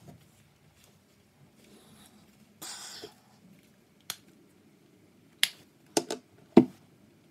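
Close handling noises from a plastic skincare tube: a short rustle about three seconds in, then five sharp clicks and taps in the second half, the loudest near the end, as the tube is opened and cream is squeezed onto the fingers.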